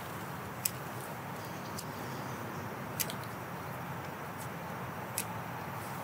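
Steady outdoor hiss with three sharp clicks spread through it, from a fishing rod and reel being handled in a plastic kayak.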